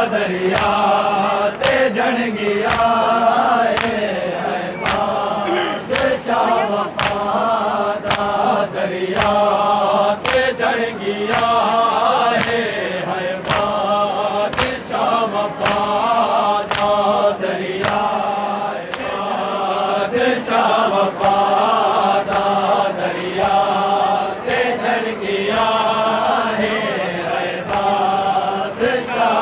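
Group of men chanting a Shia mourning lament (noha) together, over a steady beat of sharp hand strikes on the chest (matam).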